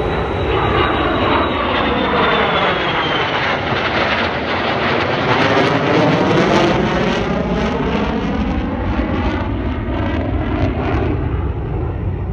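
Jet engines of an F-35 and an F/A-18 flying as a pair, a loud continuous roar passing overhead with a swirling, phasing sweep in its tone and a high whine that fades slightly early on.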